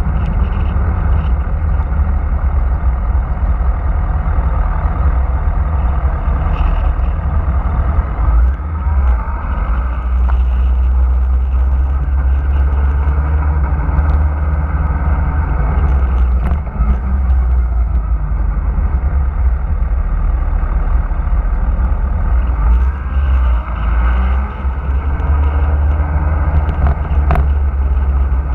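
Motorcycle engine running on the move, its pitch rising and falling several times with the throttle and gear changes. A heavy wind rumble on the microphone runs under it throughout.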